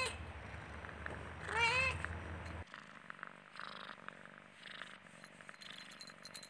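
Domestic cat purring, with one wavering meow about one and a half seconds in. The low part of the purr drops away suddenly soon after, and fainter purring goes on.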